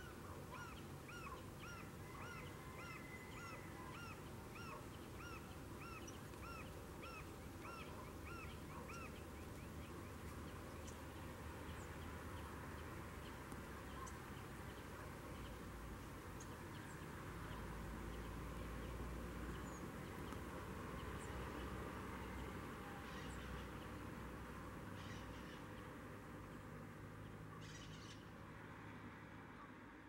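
Toco toucan calling a rapid series of about fifteen short, evenly spaced croaking notes, roughly one every half second or so, which stop about nine seconds in. After that only faint background remains, with a few brief rustles near the end.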